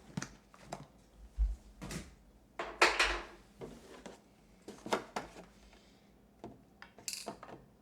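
A string of knocks and clunks from kitchen things being handled and set down, the loudest about three seconds in.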